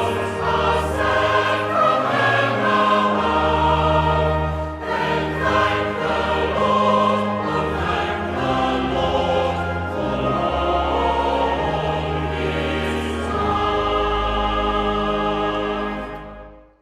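Choir singing a hymn with instrumental accompaniment, in held chords over a steady bass line. It ends on a final chord that dies away about sixteen seconds in.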